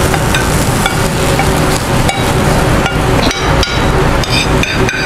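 Metal spatula knocking and scraping against a frying pan as the cooked fish is slid out onto a plate: repeated short clanks that ring briefly, over a steady low background noise.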